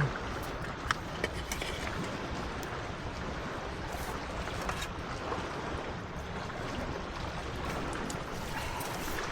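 Steady wash of sea surf, with a few sharp clicks in the first two seconds.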